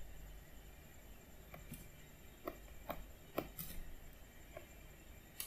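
Computer mouse clicking: about eight short, sharp clicks scattered over a few seconds, the loudest about three and a half seconds in, over a faint low hum.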